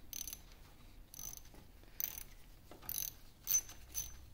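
Mini socket ratchet wrench clicking as it is swung back between turns, backing out a set screw: a sharp click roughly every second, coming closer together near the end.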